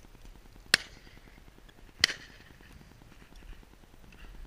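Two shotgun shots about a second and a half apart, the first the louder, the second trailing off in a brief echo.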